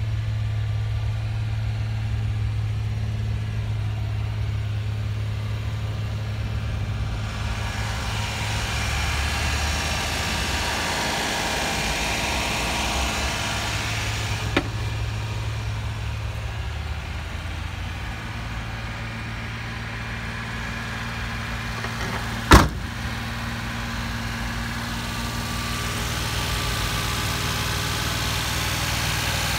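Suzuki Carry kei truck's engine idling steadily, with a small click a little past the middle and one sharp knock about three-quarters of the way through.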